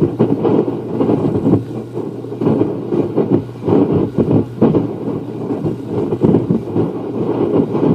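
Gusty wind buffeting the camcorder microphone: a low, rumbling rush that swells and drops from moment to moment.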